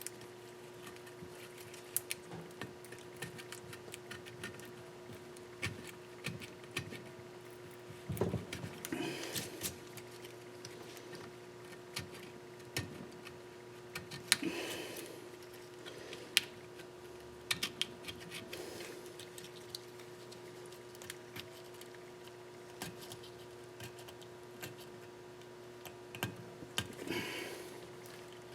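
Old gasket material being scraped off a metal engine sealing surface with a blade: irregular short scraping strokes with small clicks and taps, over a steady hum.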